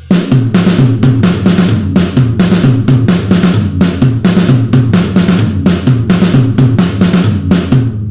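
Sampled acoustic drum kit from a Kontakt drum library playing a fast, dense drum pattern. It starts abruptly, stops shortly before the end and rings out.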